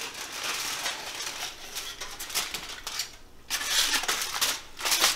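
Aluminium foil crinkling and rustling as it is peeled off a hot baking dish, with louder bursts of crackling about three and a half seconds in and again near the end.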